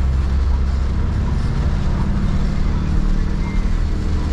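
Cabin noise inside a Toyota van driving in heavy rain: a steady low engine and road drone under an even hiss of rain on the body and windshield.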